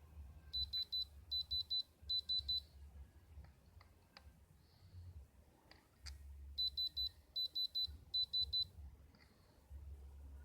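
Electronic beeping in quick groups of four high beeps, three groups in a row, then a pause, then three groups again, like a digital alarm. A few light clicks in the pause, over a faint low hum.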